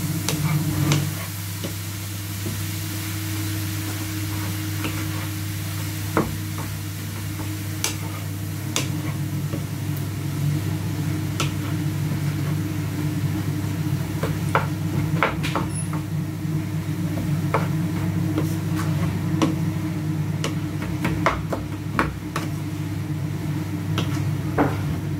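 Food sizzling in a pan as it is stirred, with scattered sharp clicks and knocks of the utensil against the pan over a steady low hum.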